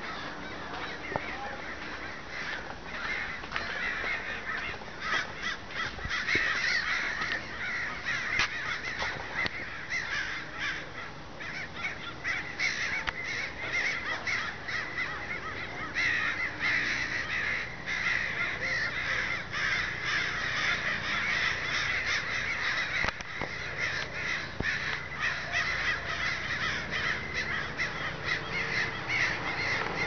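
A large flock of crows calling all at once in a continuous din of overlapping caws as they gather at their evening roost, a little fuller in the second half.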